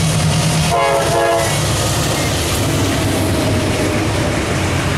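Two CSX GE Dash-8 diesel locomotives running past with a low engine drone and a short horn blast about a second in, followed by the double-stack container cars rumbling by with wheels clattering over the rails.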